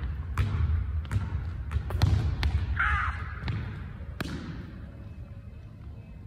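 Basketballs bouncing on a hardwood gym floor, a run of sharp bounces echoing in the large hall, which die away about four seconds in.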